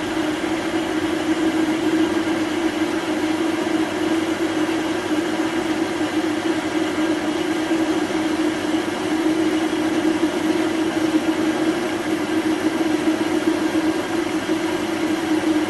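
Well-used Chinese metal lathe running under power feed, turning down a home-cast aluminium workpiece: a steady drone of motor and gears with one strong, even hum.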